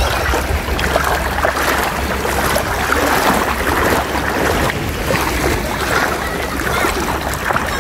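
Shallow seawater splashing and sloshing around legs as people wade through it, in a dense, uneven run of small splashes. Low wind rumble on the microphone runs underneath.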